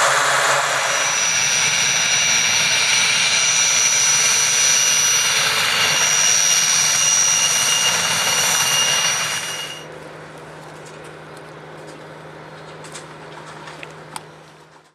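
Puma helicopter on the ground with its twin turboshaft engines running and rotor turning: a loud, steady rush with a high turbine whine. About ten seconds in it cuts to a much quieter steady low hum with a few faint clicks, fading out at the end.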